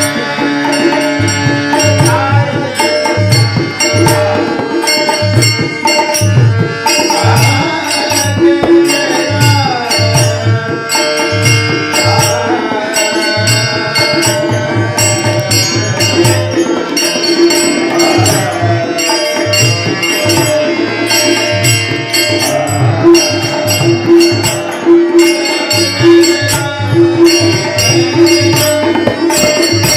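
Marathi devotional bhajan music: tabla drumming in a steady rhythm under a held drone and a gliding melody line.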